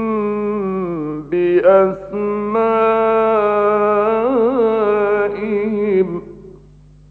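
A man reciting the Quran in melodic tajweed style: two long drawn-out phrases of held notes, the second with a wavering ornament about four seconds in. His voice stops a little after six seconds, leaving only the low steady hum of an old radio recording.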